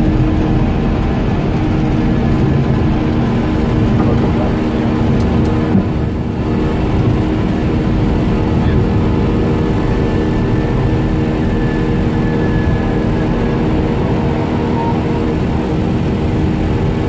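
Airbus airliner's engines at takeoff power, heard from inside the cockpit: a steady loud rumble with a hum of steady tones over it through the takeoff run, lift-off and initial climb.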